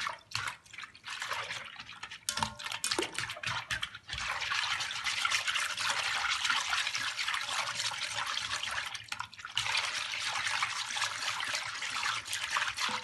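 Balloon whisk beating milk with sugar, corn flour and sahlab powder in a large pot: steady liquid swishing and sloshing, with brief pauses near the start, at about four seconds and about nine seconds in.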